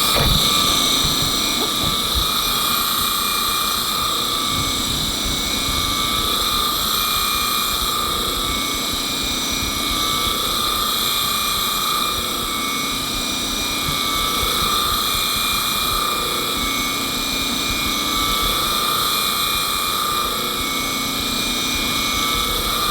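Sharpening machine's grinding wheel running with a steady high whine and grinding hiss as a Wahl 5-in-1 clipper blade is ground flat on it; the sound cuts off suddenly at the end.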